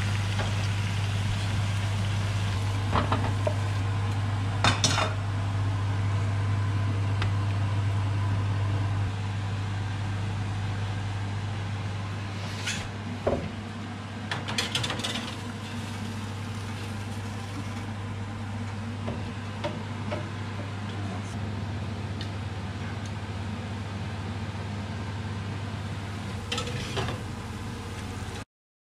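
Metal cookware being handled: a frying pan of hot sauced potato wedges and a metal baking tray clank several times as the tray is slid onto an oven rack, over faint sizzling and a steady low kitchen hum.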